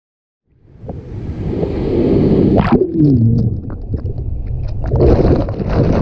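Surf churning over and around an underwater action camera: a loud, muffled rush of water with gurgling that starts about half a second in, and a short falling-pitched sound near the middle.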